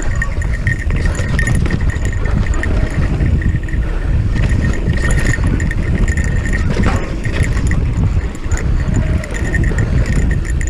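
Electric mountain bike ridden over a rough dirt trail: a steady low rumble of tyres and wind on the microphone, with rapid ticking and rattling from the bike.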